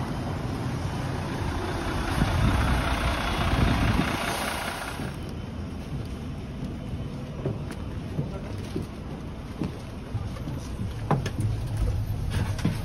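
A large bus drives past close by: engine rumble and a rushing noise swell for about five seconds, then stop sharply. After that come scattered footsteps on pavement.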